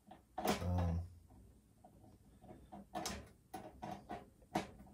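Small sharp clicks and taps of snare-drum hardware being handled as the snare wires are fitted to the strainer and butt plate, about five in the second half. A short vocal sound comes about half a second in.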